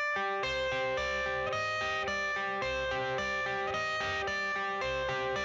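Background music: an instrumental intro of plucked guitar notes over a steady beat.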